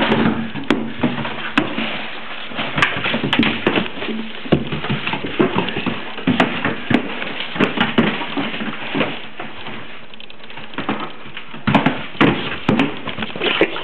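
A cardboard box knocked, bitten and shoved across a hardwood floor by a puppy: irregular scraping and scuffing with many sharp knocks and thumps, with a short lull about ten seconds in.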